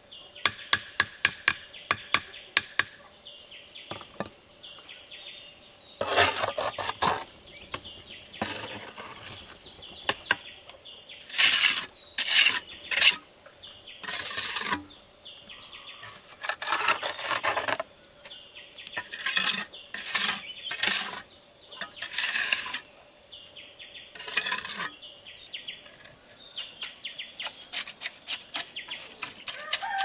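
Blocklaying: a hammer tapping a concrete hollow block down into its mortar bed in rapid light taps, then a steel trowel scraping and smoothing mortar along the block joints in repeated strokes, with quick tapping again near the end.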